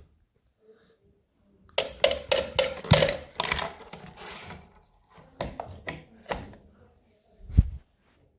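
A run of sharp mechanical clicks and knocks, densest about two seconds in, then a few scattered clicks and a heavier thump near the end.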